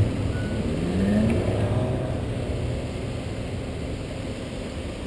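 Cars pulling away through an intersection, one engine rising in pitch as it accelerates about a second in; the traffic noise fades steadily and cuts off at the end.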